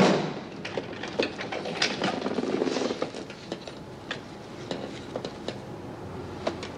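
A cell door slams shut with a sharp bang and a short ringing tail. Then only small clicks and rustles follow.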